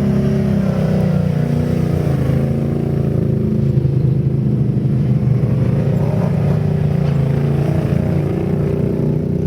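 ATV engine running, its pitch dropping over the first couple of seconds, climbing again about six seconds in, then holding steady as the throttle changes.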